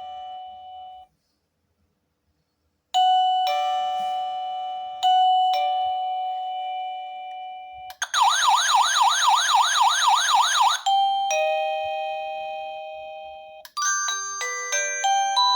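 Wireless motion-sensor welcome chime doorbell playing its built-in electronic tones: ding-dong chimes after a two-second silence, then a warbling siren-like tone for about three seconds, a single fading chime, and near the end a quick tune of short beeping notes.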